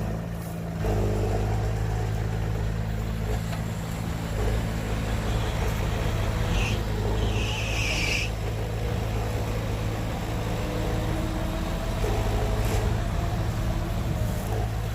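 Heavy diesel engine of a dump truck or bulldozer running steadily, with a brief hiss about halfway through.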